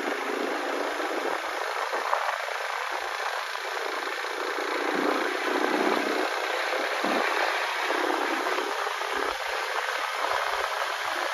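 Steady rush of wind and engine noise from a KTM RC 390 motorcycle on the move, swelling slightly now and then.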